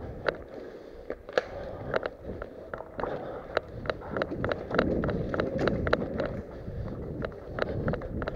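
Hurried footsteps and the rustle of worn gear as a player moves fast, with an irregular run of sharp clicks, about two or three a second.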